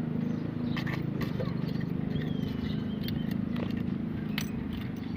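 Several short, sharp taps of a metal key knocking at the cap of a new engine-oil bottle to break it open, over a steady low hum.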